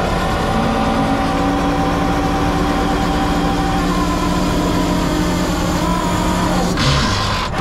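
Peterbilt 389 semi truck idling with its PTO engaged, running the trailer's hydraulic-driven product pump: a steady drone with a steady whine over it. The pump is working against a closed valve and pressuring up the hose. A brief rush of noise comes near the end.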